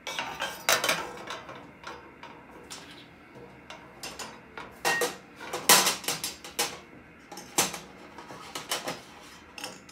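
IKEA Raskog cart's steel mesh basket clanking and rattling against the cart's metal uprights as it is fitted into place: a series of irregular sharp metal knocks, the loudest about a second in and again about six seconds in.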